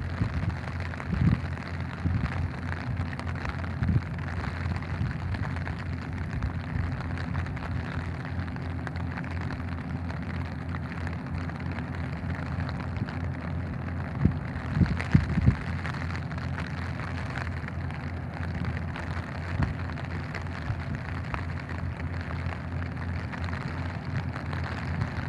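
Steady rain falling on an umbrella held over the microphone, with a few louder knocks about 14 and 15 seconds in.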